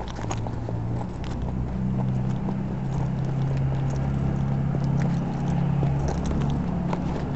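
A steady, low motor hum with a few deep tones, growing a little louder after the first second, with scattered footsteps on pavement.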